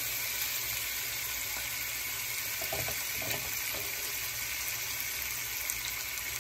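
Boneless chicken thighs sizzling in hot oil in a nonstick frying pan: a steady frying hiss as the meat sears on its second side.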